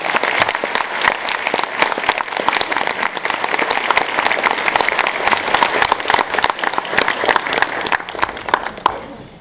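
Audience applauding: dense clapping that thins and fades out near the end.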